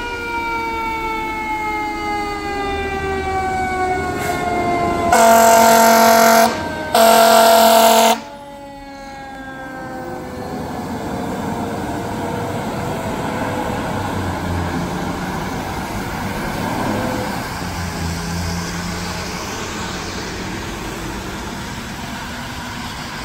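Fire engine responding with its siren going: the siren slides down in pitch, two long air-horn blasts sound, then the siren wails slowly up and down over the truck's engine as it passes and pulls away.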